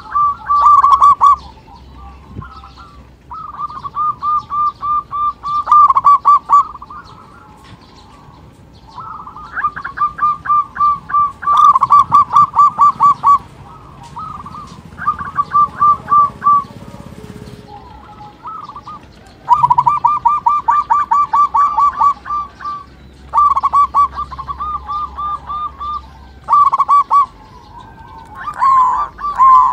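Zebra dove (perkutut) singing its rhythmic cooing song: repeated bursts of rapid, evenly spaced coos, each burst a second or two long, with short pauses between. A lure recording used to set other perkutut singing.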